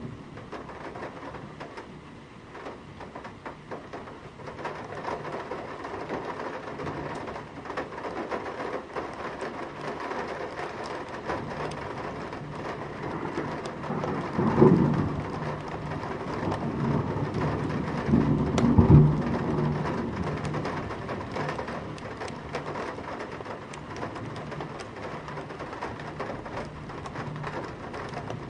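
Heavy rain drumming steadily on a metal window sill, heard from inside. Thunder rumbles through the middle, with two loud peaks about halfway through and again a few seconds later.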